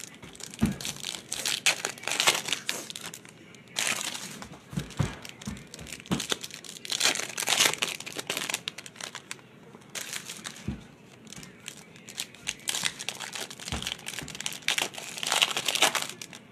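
Foil wrappers of Bowman Chrome baseball card packs being torn open and crinkled by hand, in irregular bursts of crackling, with a few soft knocks of handling.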